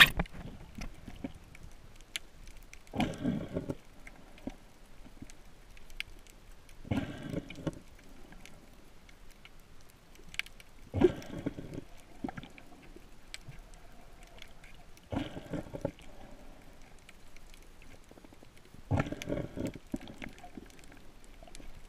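A swimmer breathing, heard through the water: five rough, gurgly breaths about four seconds apart, with faint scattered clicks between them.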